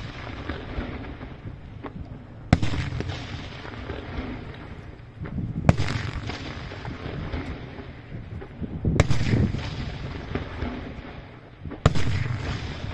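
Fireworks bursting in a night display: four sharp bangs about three seconds apart, each trailing off in an echoing rumble.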